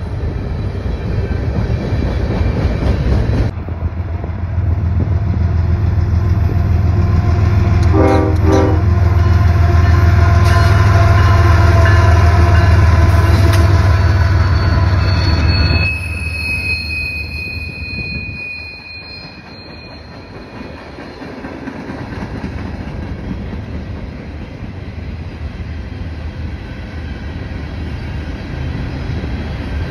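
Freight train passing: railcars rumbling by, then a CSX diesel locomotive's engine running loud, with a brief horn sound about eight seconds in. From about halfway it drops to a quieter rolling rumble with a thin, high wheel squeal.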